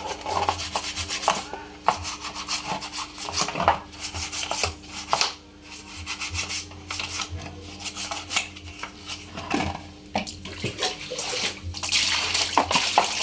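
Irregular scrubbing and rubbing strokes with water sloshing in a tub, over a faint steady low hum.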